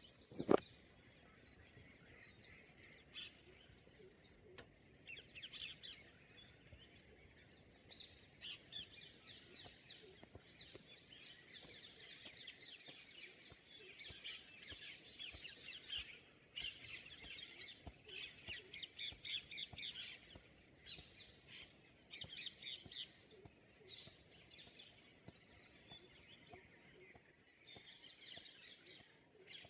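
Many small birds chirping, a busy stream of quick high notes. A single sharp click comes about half a second in.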